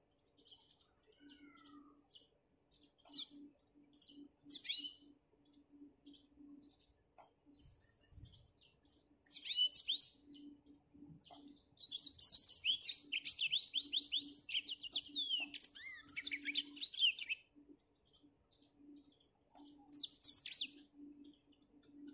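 Black-throated canary singing: scattered short chirps, a brief phrase about nine seconds in, then a long fast twittering song of about five seconds, and another short phrase near the end.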